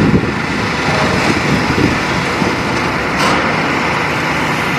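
Steady engine noise from demolition plant: a diesel excavator and a dust-suppression water-spraying machine running.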